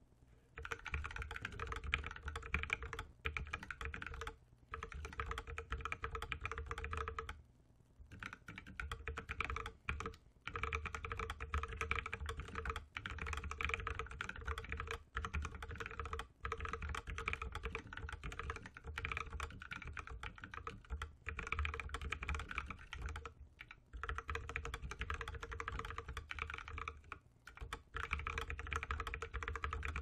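Lily58 Pro split keyboard with a 3D-printed case, fitted with Blue Velvet tactile switches lubed with 3204 on the housings and 205g0 on dipped springs under DSA keycaps, being typed on fast and continuously. The keystrokes run densely together, with a few short pauses, one about seven and a half seconds in.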